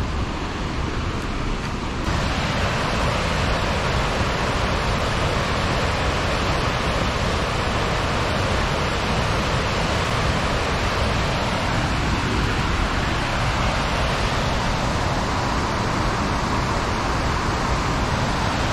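Steady rushing of a large waterfall and the rapids below it: an even wash of white noise that grows fuller about two seconds in.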